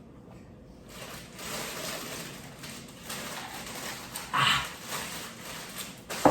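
A young child's voice in the background: a short squeal or fussing sound about four seconds in, over low handling and eating noise. A sharp knock near the end.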